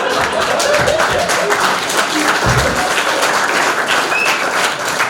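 Comedy club audience applauding and cheering after a punchline, with some laughter mixed in; the clapping fades toward the end.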